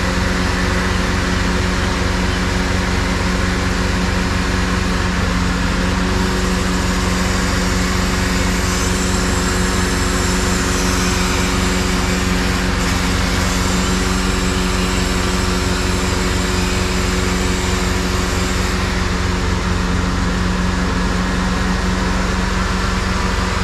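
Truck's diesel engine running at a steady, held speed: a constant drone with a fast low pulse, unchanging in pitch. A hiss rides over it from about six seconds in until near twenty seconds.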